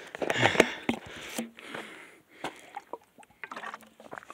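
A person drinking from a bottle in gulps, liquid sloshing, while out of breath. Breathy noise over the first second and a half gives way to softer scattered clicks.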